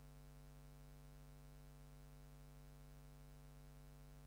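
Near silence: a faint steady hum under low hiss.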